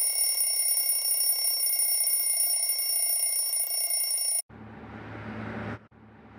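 An electric alarm bell rings continuously, loud and steady, then cuts off suddenly about four and a half seconds in. A vehicle engine's low hum with street noise follows.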